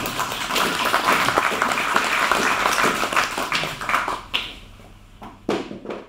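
Audience clapping, a dense patter of many hands that dies down after about four seconds, with a few scattered sounds near the end.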